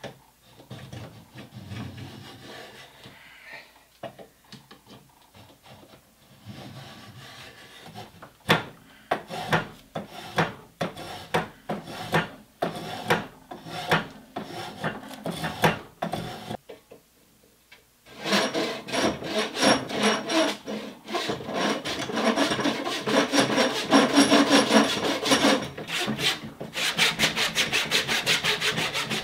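Hand tools working a wooden axe handle: separate scraping strokes of a spokeshave shaving the wood, then, after a short pause, a louder run of rapid strokes, with a handsaw cutting the handle near the end.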